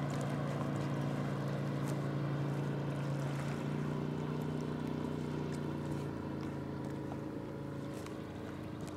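Motorboat engine running with a steady low hum, growing slightly fainter after about six seconds.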